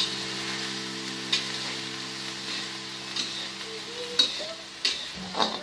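Tempeh and long beans stir-frying in a pan, a steady sizzle, with a spatula clacking and scraping against the pan a few times.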